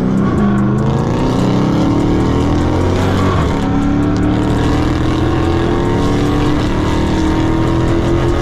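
Dodge Charger R/T's 5.7-litre Hemi V8 accelerating, heard from inside the cabin: the engine's pitch climbs, drops at a gear change about three and a half seconds in, then climbs again.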